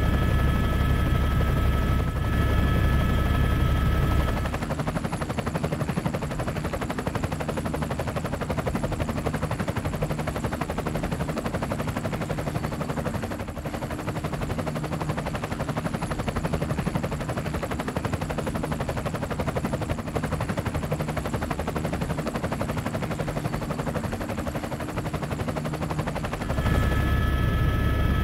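Helicopter running: continuous rotor and turbine noise. The sound changes character about four seconds in, to a fast, even chopping, and changes back near the end, when a deep rumble with a steady high whine returns.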